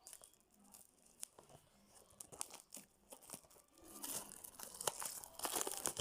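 Packaging being torn open and crinkled by hand: a few scattered crackles at first, then denser, louder crinkling and tearing near the end.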